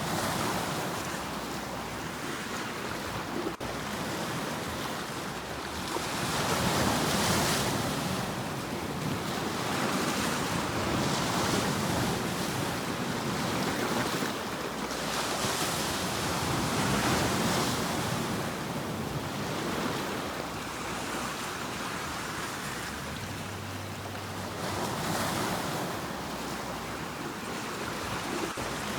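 Ocean surf breaking on a shore, the rush of water swelling and falling back every few seconds.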